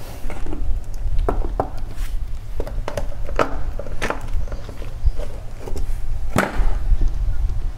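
Scattered clicks and knocks of a screwdriver and plastic miniature circuit breakers being handled on a wooden tabletop while the breaker terminals are worked, with a sharper knock about six seconds in, over a steady low rumble.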